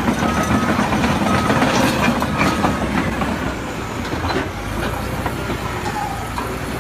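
Heavy machinery working, with steady clattering and sharp metallic knocks. A reversing alarm beeps repeatedly for the first couple of seconds, then stops.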